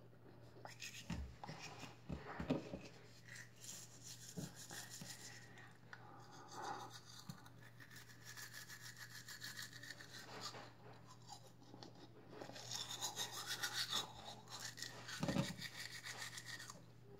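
Manual toothbrush scrubbing teeth in fast back-and-forth strokes, coming in spurts with short pauses. A steady low hum runs underneath, and two dull thumps, one about two seconds in and one near the end, are the loudest moments.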